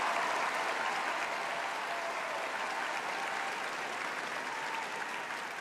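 Large theatre audience applauding, slowly dying down.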